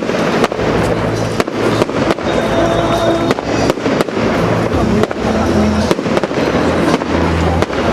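Fireworks display: a rapid run of bangs and crackles from bursting shells, with music playing steadily underneath.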